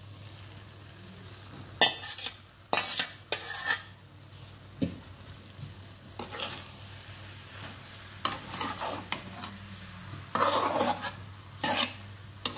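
Metal spoon stirring and scraping chopped okra through onion-tomato masala in a frying pan, in irregular strokes starting about two seconds in, over a faint steady sizzle.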